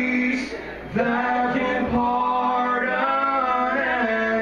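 Men's gospel vocal group singing in harmony, holding long notes, backed by mandolin, acoustic guitar and bass.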